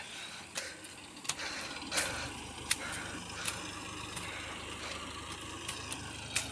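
A small engine, likely the walking power tiller seen in the paddy, running steadily with a low hum that comes in about a second in. Scattered sharp clicks and taps sound over it.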